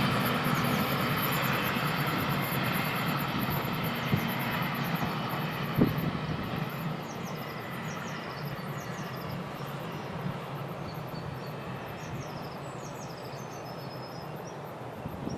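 Class 650 diesel railcar running away from the crossing, its rumble fading steadily. Birds begin chirping about halfway through as it dies away.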